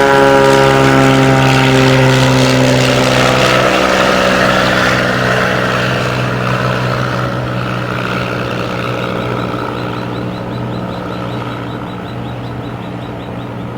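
Float plane's propeller engine running, its pitch dropping slightly as it passes, then fading steadily as it moves away.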